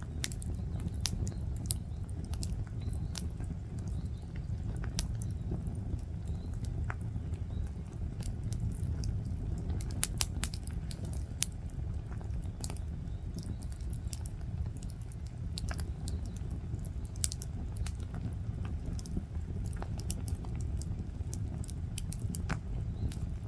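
Wood bonfire crackling: scattered sharp pops and snaps over a steady low rumble.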